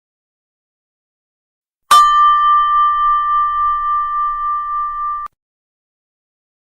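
A single struck bell about two seconds in, ringing on with a slow pulsing wobble in loudness, then cut off abruptly after about three and a half seconds.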